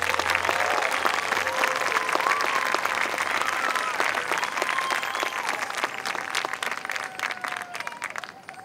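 Crowd applauding and cheering, with clapping and scattered shouts, dying away near the end.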